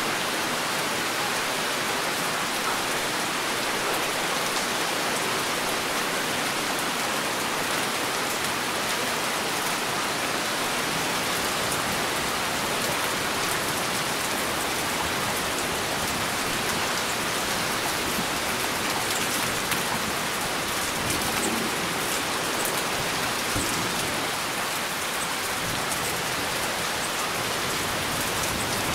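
Heavy rain falling steadily: a dense, even hiss with the sharp ticks of single drops.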